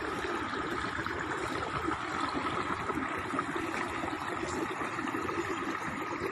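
Steady splashing and lapping of swimming-pool water as a swimmer swims through it.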